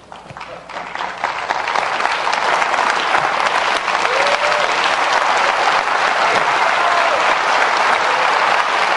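Audience applauding at the end of a stage performance. The clapping starts thin, builds over the first second or so, then holds steady and loud.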